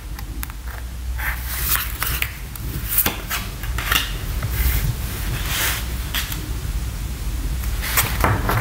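Tarot cards handled over a wooden table: a card drawn from the deck and laid down beside the others, with scattered clicks, taps and sliding swishes of card on card and table.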